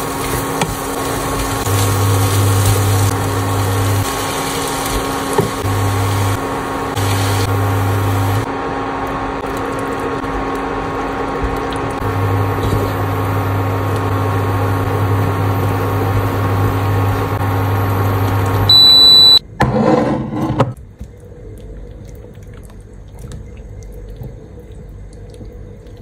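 Sausage slices and vegetables sizzling in a frying pan as they are stir-fried with a spatula, over a steady hum and a low hum that switches on and off. About 19 seconds in there is a short high beep, then a brief loud burst of noise, and the sizzle gives way to quieter sound.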